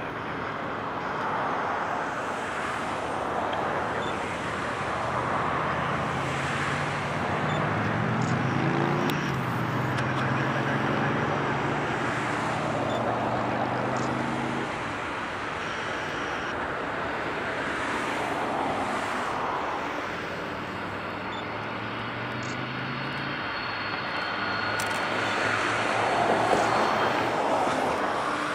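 Four jet engines of a Boeing 747 at taxi power as it rolls by: a continuous rushing jet noise that swells and fades in slow waves, with a low hum rising and falling through the middle.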